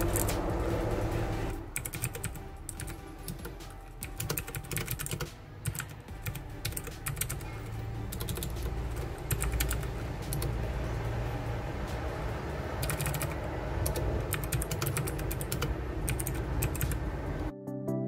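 Fast typing on a Royal Kludge RK100 mechanical keyboard: a dense, uneven run of key clicks and clacks.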